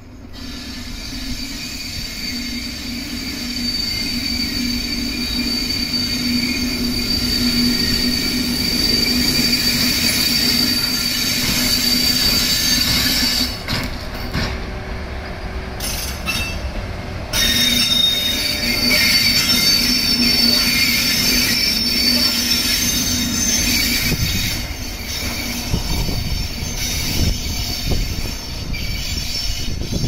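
EF81 AC/DC electric locomotive running light at low speed, with a steady hum from its motors and a high, steady wheel squeal, growing louder over the first few seconds as it approaches.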